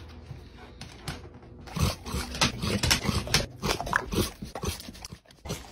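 A dog making a quick, irregular string of short vocal sounds, starting about two seconds in.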